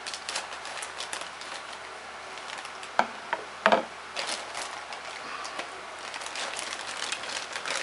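Clear plastic parts bag crinkling and rustling as it is cut open with a blade, with a few sharp clicks about three to four seconds in.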